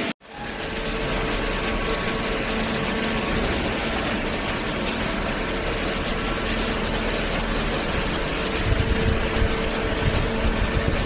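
Industrial cardboard baler running: a steady machine hum from its hydraulic pump and motor, with a few low thumps near the end.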